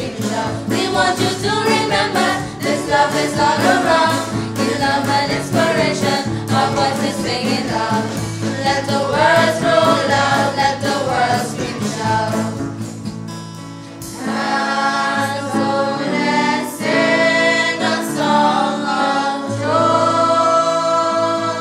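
Youth choir singing a song in several voices to electronic keyboard accompaniment. About fourteen seconds in, the music dips briefly and comes back with longer held chords.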